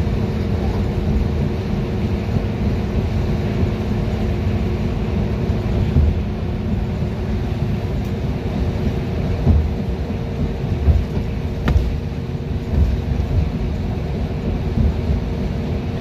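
Interior of a 2011 Gillig Advantage transit bus moving at highway speed: a steady engine and drivetrain drone with a low road rumble. A few low thumps from bumps in the second half, and one sharp click.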